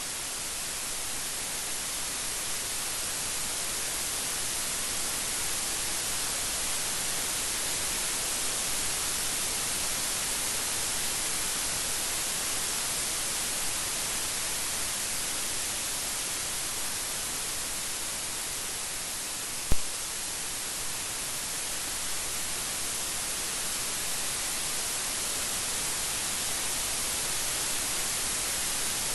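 Steady, dense rain making an even hiss, with one sharp click about two-thirds of the way through.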